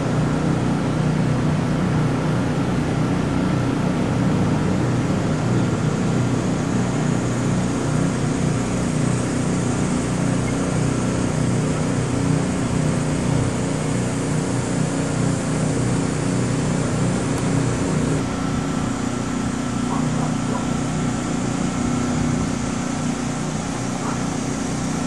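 An engine running steadily, a constant low hum with no change in speed.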